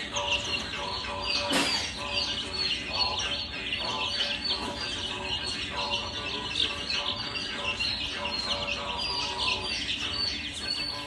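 Many small birds chirping together, a dense continuous chatter of quick, overlapping high chirps.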